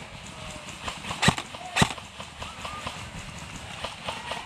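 Two single shots from a Krytac Trident MK-II CRB airsoft electric rifle, sharp and loud, a little over a second in and about half a second apart.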